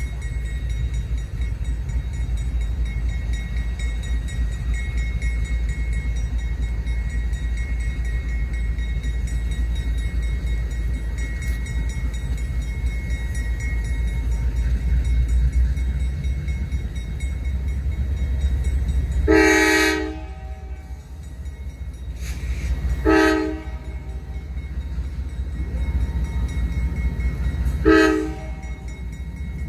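Diesel locomotive air horn sounding three blasts, several notes at once: a longer one about two-thirds of the way in, then two shorter blasts a few seconds apart, over a steady low rumble.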